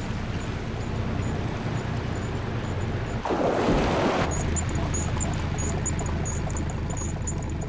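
Fishing boat at sea: a steady low engine drone with water noise, and a one-second splash about three seconds in as the concrete-weighted bait goes overboard. After it comes a quick, light, irregular ticking as the line pays out.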